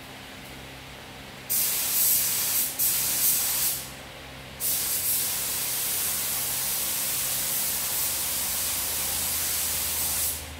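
SATA 5000 RP spray gun with a 1.3 mm nozzle hissing as compressed air atomises paint while the trigger is held: a burst of about two seconds with two brief breaks, a short pause, then one steady pass of about six seconds. A steady low hum runs underneath.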